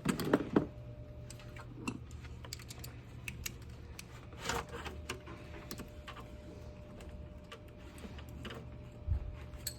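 Irregular light clicks and taps of hand tools and metal engine parts being handled, loudest in the first second.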